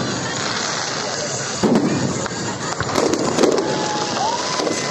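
Fireworks display: heavy shell bursts about one and a half seconds in and again around three seconds in, over continuous crackling.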